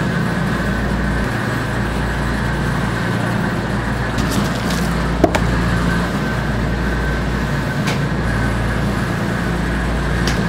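Steady rushing noise and low hum of kitchen machinery, with a faint thin high whine running through it. A single sharp click comes about five seconds in.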